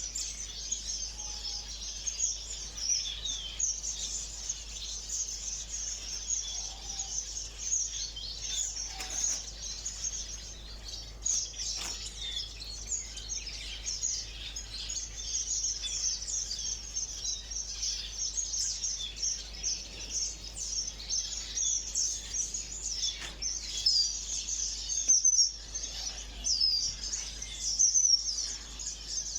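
Many small ornamental cage birds chirping at once in a dense, unbroken high-pitched chatter, with a few louder chirps stand out near the end.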